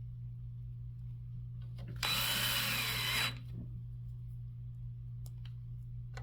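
Cordless drill-driver running in one burst of just over a second about two seconds in, its whine dipping and recovering as it drives a screw into the caddy's plate. A steady low hum lies under it.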